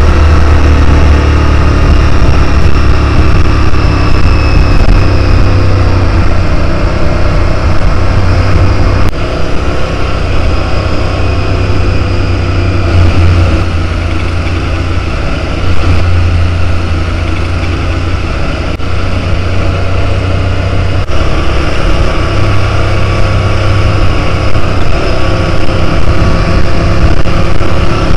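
Adventure motorcycle's engine running at road speed with heavy wind rush on the rider's camera microphone; the engine and wind ease off for a while in the middle, then pick up again.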